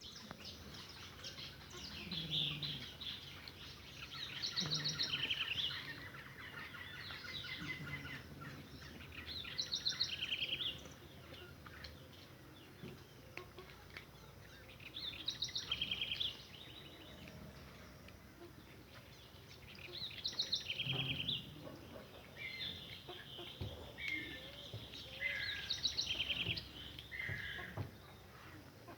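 Birds calling, with short bursts of rapid, trilled high notes repeating every few seconds, some overlapping.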